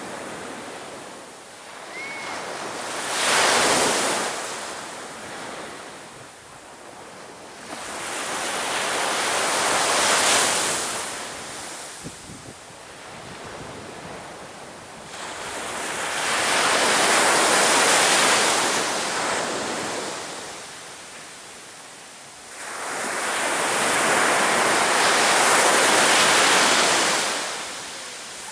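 Sea waves breaking on a beach: four swells of surf that build and fall away, the last two each lasting several seconds.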